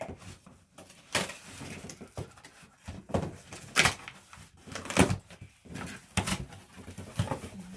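Products and packaging being handled and set down: rustling with several sharp knocks and clacks, the loudest about five seconds in.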